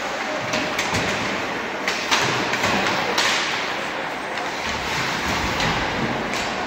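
Ice hockey play: skates scraping the ice with scattered sharp clacks and thuds of sticks, puck and bodies against the boards.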